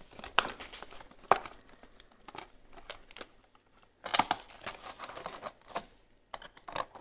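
Clear plastic packaging crinkling and crackling as it is handled. There are a couple of sharp crackles in the first second and a half, a short lull, then a busier stretch of crinkling from about four seconds in.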